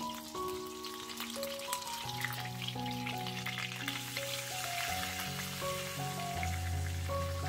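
Flour-coated chicken breasts sizzling and crackling in hot oil in a frying pan as they are laid in. Background music plays underneath.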